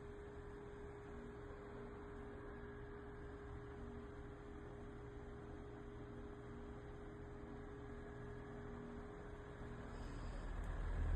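A steady low electrical-sounding hum with a faint held tone. A low rumble swells in near the end.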